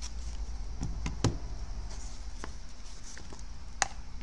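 Several light knocks and clicks from handling a portable external hard drive, its USB cable and its zippered case as they are set down on a rubber work mat, the sharpest about a second in, over a steady low hum.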